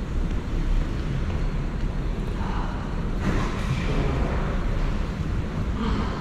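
Steady low rumble and rushing noise of a train in motion, with the rushing swelling about two and a half seconds in and again near the end.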